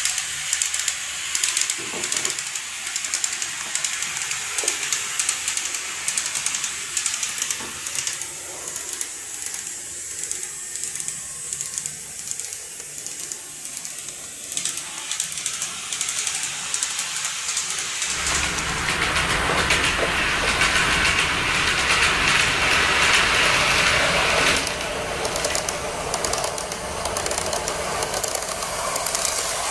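KATO N-scale model of a JR 115 series 300 electric train running on layout track: a steady rolling hiss from the wheels with light clicking over the rail joints. About two-thirds of the way through it grows louder and fuller for several seconds, then eases off.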